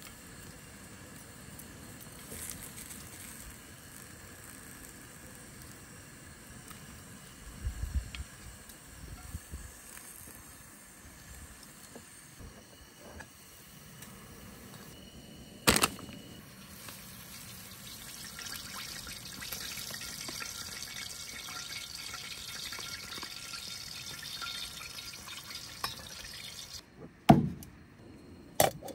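Pot of water at a rolling boil on a propane camp stove, a steady bubbling hiss. Sharp knocks of cookware being handled break in: one about halfway through and two near the end, the first of those the loudest.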